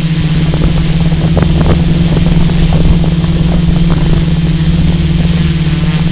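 Multirotor drone's motors and propellers whirring at a steady pitch, heard through the camera slung beneath it, over a steady hiss.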